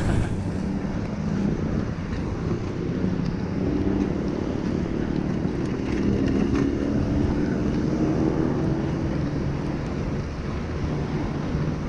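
Wind noise on the microphone and bicycle tyres hissing on a rain-soaked road. A motor vehicle's engine hum rises and falls through the middle.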